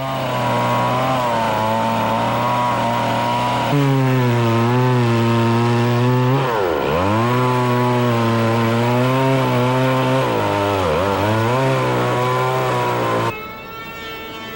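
Small chainsaw cutting the flat of a log's dovetail notch. Its engine pitch sags sharply twice as the chain takes load, and the saw drops away near the end.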